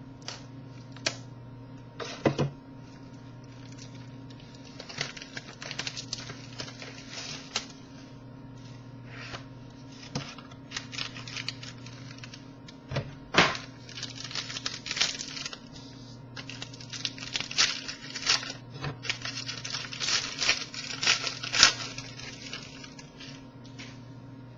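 A trading-card box and its pack being opened and handled by hand: tearing, crinkling of the wrapper and irregular clicks and rustles of cardboard, over a steady low hum.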